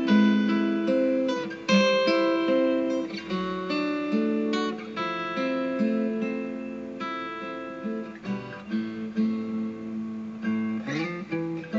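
Background music played on acoustic guitar: plucked notes and chords changing every second or so, with a short rising slide near the end.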